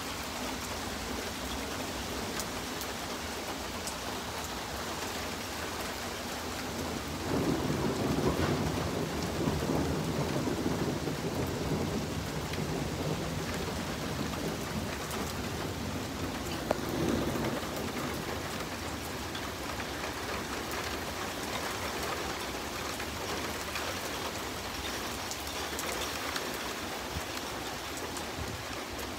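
Steady rain falling, with thunder rumbling over it. A long roll of thunder comes about a quarter of the way in, and a second, shorter one a little past the middle.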